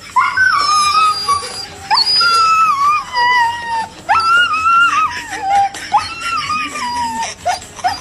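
Labrador retriever giving long, high-pitched howling whines, about four of them, each sliding down in pitch at its end.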